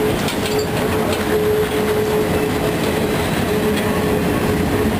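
Open-sided excursion car rolling along the track: a steady rumble and rattle of wheels and car body, with a thin steady squeal under it that breaks off now and then.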